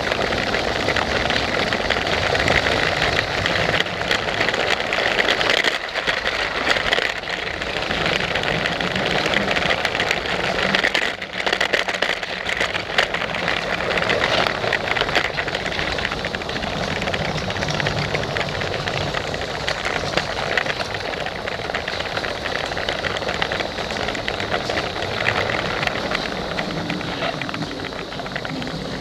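Lego freight train running on plastic track, heard from a camera riding on it: a steady motor whir with a continuous rattling clatter of wheels and track.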